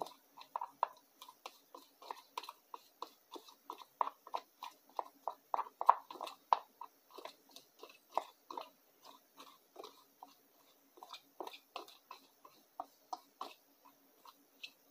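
A metal utensil stirring a thick homemade wood filler of sawdust and wood glue in a small plastic cup. It makes a quick run of short scrapes and clicks, about three or four a second, that grows quieter near the end.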